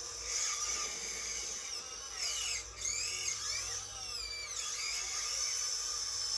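The hydraulic drive of a scale RC excavator, a Huina 1592 body converted to hydraulics, whining steadily at a high pitch while the boom and bucket dig. In the middle, several whines bend up and down in pitch as the arm works.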